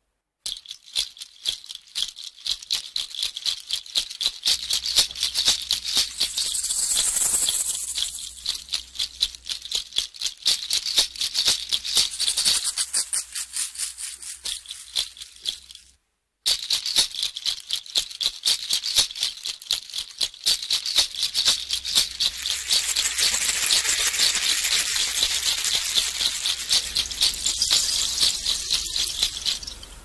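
A fast, dry, high-pitched rattling, in two stretches that each fade out, with a short silent break about sixteen seconds in.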